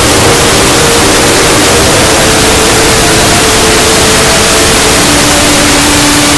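Extremely loud, harshly distorted 'earrape' audio: a constant hiss that fills every pitch, with faint held notes underneath that step to a new pitch every second or so.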